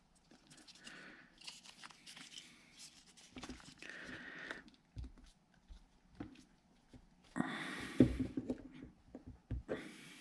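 Rustling, crinkling and light knocks of parts being handled, with a louder burst of rustling and knocks about seven and a half seconds in.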